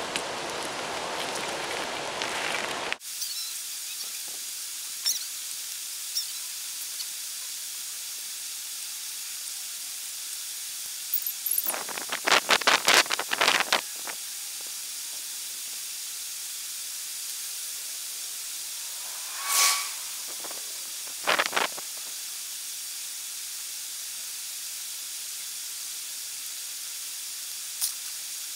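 Steady hiss of a creek's rushing water. A quick run of sharp clicks breaks in about twelve seconds in, with a short sound near twenty seconds and two brief knocks just after.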